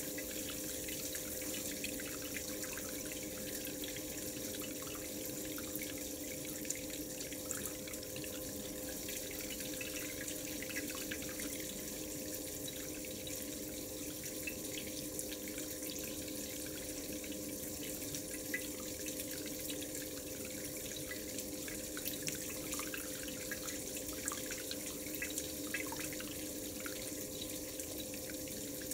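Water flowing steadily through a gold cup vortex concentrator, swirling in the clear cylinder so that gold settles in the cup, with a steady hum underneath and scattered faint ticks.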